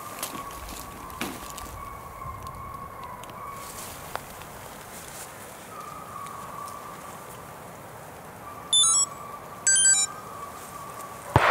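Faint, distant baying of Russian hounds on a hare's trail, fading in and out. Two short, loud, high chirps come about nine and ten seconds in. Right at the end comes a single shotgun shot, echoing through the woods as it dies away.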